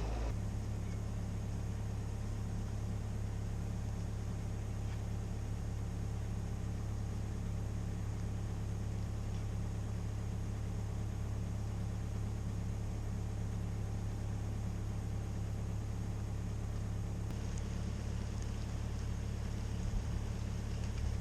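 Excavator's diesel engine running steadily at a constant low drone.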